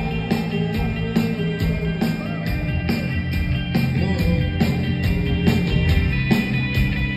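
Live rock band playing an instrumental passage: drum kit keeping a steady beat under sustained electric guitar and keyboard.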